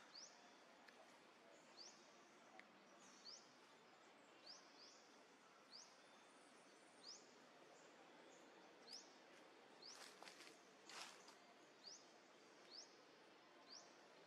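Faint outdoor ambience in which a small bird gives a short, high, rising chirp roughly once a second. Two brief rustling noises come about two-thirds of the way through.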